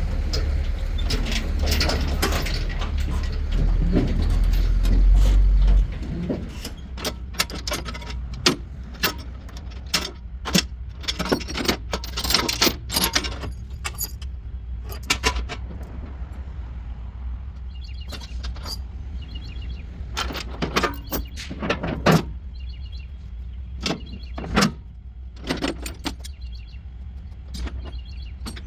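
Engine running with a low drone that drops sharply in level about six seconds in, then carries on more quietly under a series of sharp metallic clanks and rattles.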